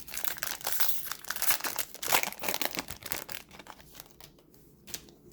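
A 2018-19 Upper Deck Ice hockey card pack wrapper being torn open and crinkled, busiest for the first three seconds or so, then thinning to a few light crackles near the end.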